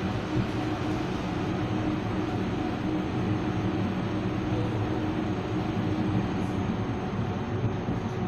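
BN T2000 low-floor tram running, heard from inside the passenger saloon: a steady rolling rumble with a steady hum from the traction equipment.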